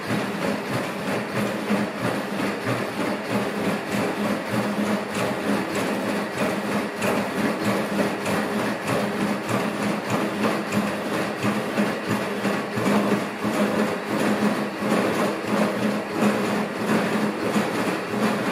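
ANYmal quadruped robot walking: a steady hum from its joint motors under a quick, uneven run of foot taps and clicks.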